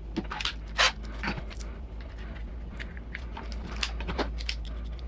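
Scattered light clicks and knocks of hard plastic and metal RC crawler parts being handled as a rear axle's links are worked toward the chassis mounts, the loudest about a second in. A steady low hum runs underneath.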